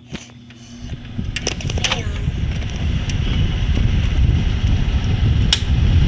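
Panasonic air conditioner starting up after its control knob is switched on: a click, then the fan's air rush building over the first few seconds to a steady, loud rush, with a few sharp clicks along the way.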